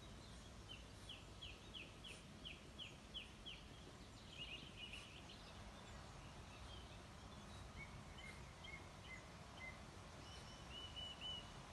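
Faint bird calls over low background hiss: a run of about eight short, evenly repeated high notes in the first few seconds, then scattered shorter chirps later on.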